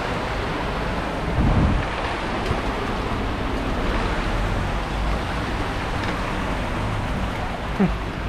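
Steady rushing noise of a flooded street, with water swirling and cars pushing through the floodwater, and a louder swell about a second and a half in.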